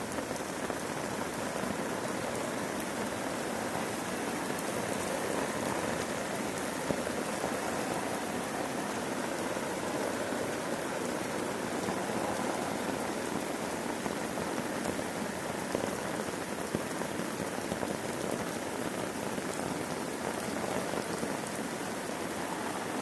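Heavy thunderstorm rain falling steadily on a tarp overhead.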